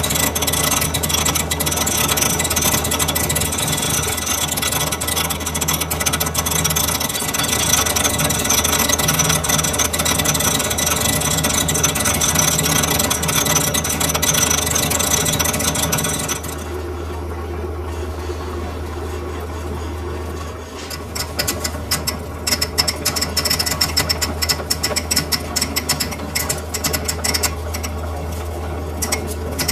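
Metal-working lathe running with a steady low motor hum and harsh, dense cutting noise from the tool working metal. About halfway through the cutting noise stops, and a few seconds later a fast, uneven clicking rattle starts over the hum.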